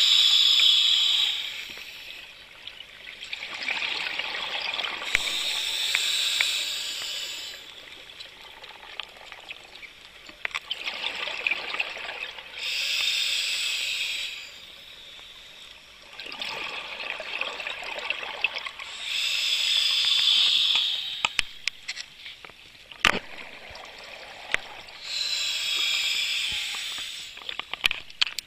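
Scuba diver breathing through a regulator underwater. A loud bubbly hiss of exhaled air comes about every six to seven seconds, with a quieter hiss of inhaling between them. A few sharp clicks come near the end.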